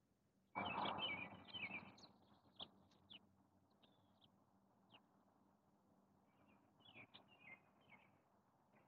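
Faint high-pitched bird chirps: a short cluster about half a second in, then a few scattered chirps around seven to eight seconds in.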